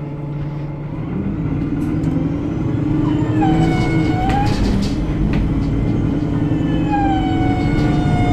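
Alexander Dennis Enviro 300 single-deck bus running, its engine and road rumble growing slightly louder, with a high-pitched squeal that comes in about three and a half seconds in for a second or so and returns near the end, sliding a little in pitch.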